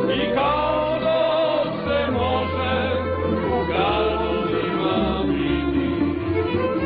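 Folk string band playing a slow song on plucked string instruments over a steady bass, with several voices singing the melody together.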